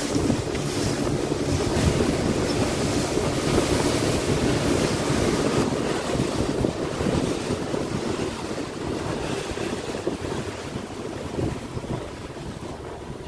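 Wind buffeting the microphone and water rushing and splashing along the hull of a small boat under way, easing off somewhat in the second half.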